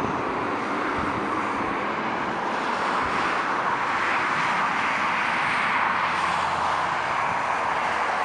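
Twin turbofan jet engines of a Boeing 737 airliner during landing and rollout: a steady rushing jet noise that swells about three seconds in as reverse thrust is applied after touchdown, kicking spray up off the runway.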